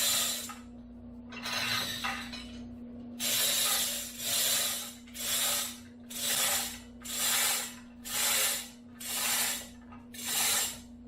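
A hand ratchet worked in repeated strokes, a rasping burst of clicks about once a second, the strokes coming evenly from about three seconds in. A steady low hum runs underneath.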